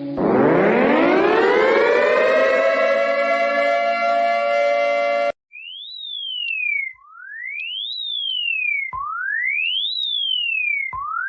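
Emergency alert siren tones. A chord of several tones winds up in pitch over about two seconds and holds steady, then cuts off abruptly about five seconds in. A single pure tone follows, sweeping up and then down in a repeating zigzag about every two seconds.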